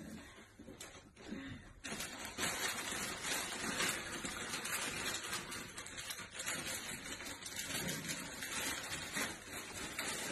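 Wrapping paper crinkling and rustling as a present is wrapped by hand, quiet at first and then steady and dense from about two seconds in.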